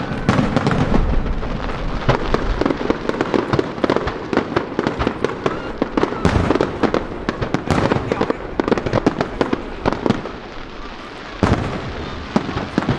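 Fireworks display: a dense run of aerial shell bursts and crackling bangs in quick succession, with an especially sharp bang near the end.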